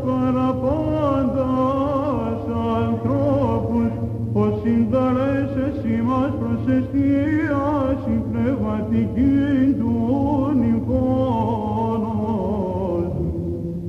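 Byzantine chant: a male cantor sings a winding, ornamented line over a steady low drone (the ison) held by other voices. The drone changes pitch about two seconds in and again near the end.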